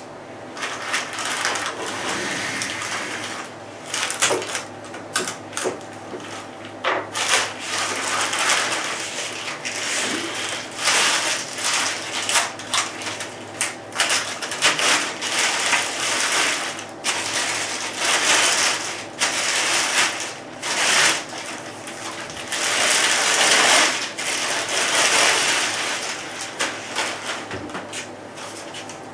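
Clear plastic bag crinkling and rustling as it is handled and pulled off a rifle, on and off, dying down near the end.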